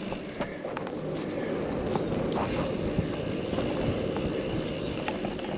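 Steady rolling and wind noise of a bicycle being ridden along a road, with a few light clicks scattered through.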